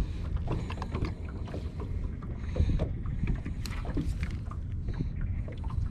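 Steady low rumble of wind and water around a small fishing boat, with scattered small knocks and clicks.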